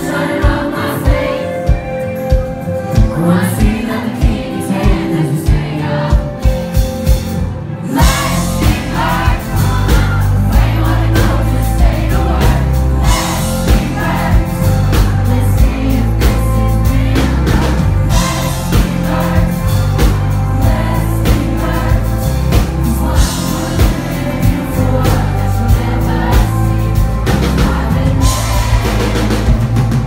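Live band music with a male lead singer and acoustic guitar. A sparse, steady low beat runs under the voice until about eight seconds in, when the full band comes in louder and denser.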